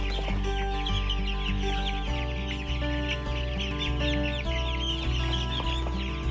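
A flock of young Jumbo Cornish Cross broiler chicks peeping continuously, many high, short chirps overlapping, over steady background music.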